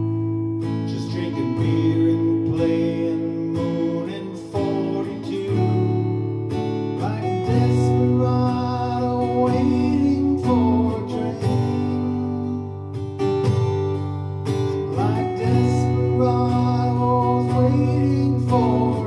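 Acoustic guitar strumming and picking chords in a country song, with the notes bending in places.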